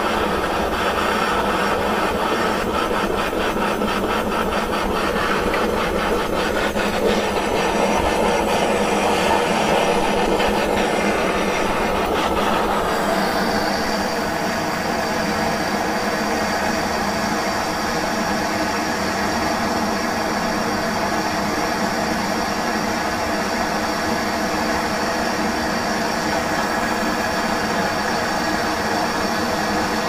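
Handheld gas torch burning steadily, a constant rushing hiss of the flame played on a padlock's aluminum housing as it melts. About 13 seconds in, the sound changes character and a faint, thin, high steady tone joins it.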